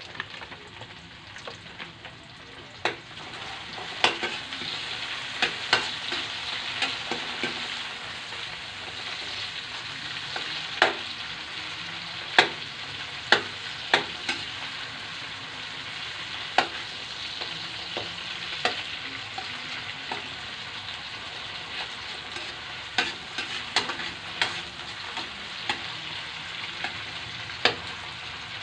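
Chopped vegetables and shredded chicken sizzling in hot oil in a stainless steel wok, stirred with a metal spatula that scrapes and clanks against the wok at irregular moments. The sizzle gets louder about four seconds in.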